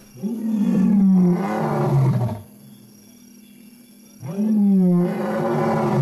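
Lion roaring: two long, deep roars about two seconds apart, each lasting about two seconds.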